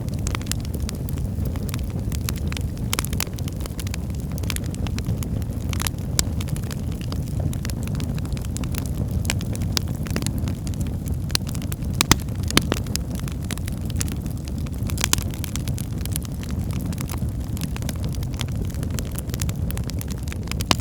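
Wood fire burning in a fireplace: a steady low rumble of flames with frequent, irregular crackles and pops of burning firewood.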